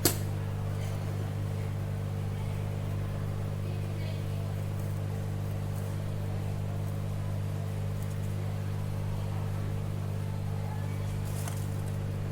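Steady low electrical hum from the repair bench, unchanging throughout, with one sharp click right at the start.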